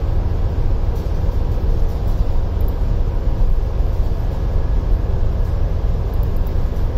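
Steady low rumble of a ship's machinery, with the MAN ME electronically controlled two-stroke main engine running, heard muffled from inside the engine control room.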